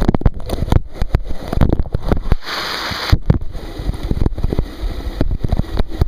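Falling water of a waterfall close to the camera, with drops and streams striking it in loud, irregular knocks over a constant splashing. A brief denser rush of water comes about two and a half seconds in.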